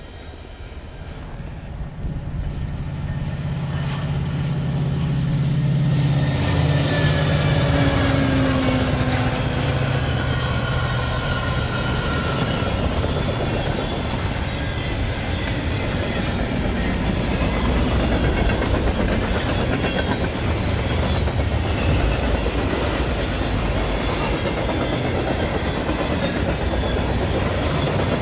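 Freight train passing: diesel locomotive engines drone louder over the first six seconds and drop in pitch as they go by, then the freight cars rumble past with steady wheel clatter on the rails.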